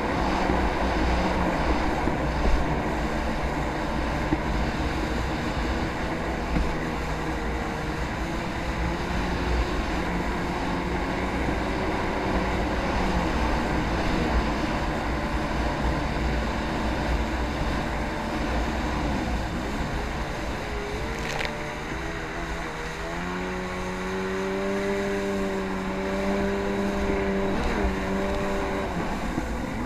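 Jet ski engine running steadily, then its pitch wavers and steps up about two-thirds of the way through, holding a higher steady note to the end.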